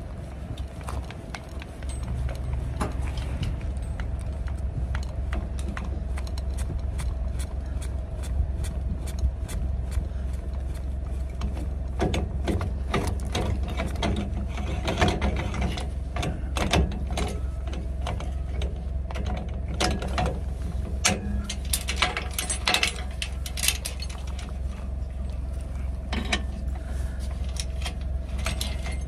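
Rusty steel trailer safety chains clinking and rattling against a galvanized trailer coupler as they are handled, in clusters of sharp metallic clicks, thickest in the middle. A steady low hum runs underneath from about two seconds in.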